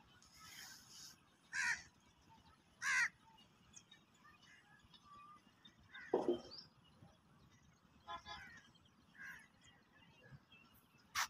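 Birds calling outdoors: a few short, separate loud calls spaced a second or more apart, with quieter calls between them, and a sharp click near the end.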